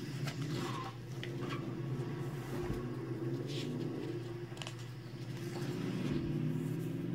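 A steady low hum with a few soft, short rustles and clicks of sketchbook pages being handled.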